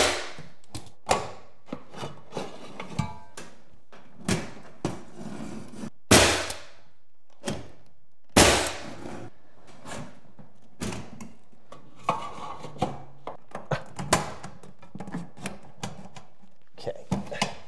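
Ridgid pneumatic angled finish nailer firing nails into wooden baseboard: sharp shots, the loudest about six and eight and a half seconds in, among lighter knocks and clicks of the tool and trim being handled.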